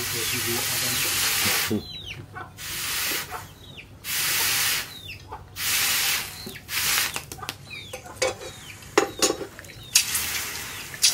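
A hot leaf-spring steel machete blade being quenched in a water trough, dipped in and out so the water hisses and sizzles in repeated bursts of about a second each. Near the end the hissing gives way to water splashing and a few sharp clicks as the blade is handled in the water.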